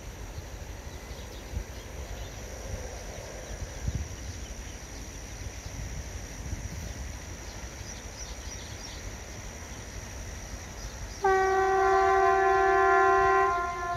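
Indian Railways electric locomotive's horn sounding one long blast about eleven seconds in, several tones together, sagging slightly in pitch as it fades. Before it there is only a low background rumble.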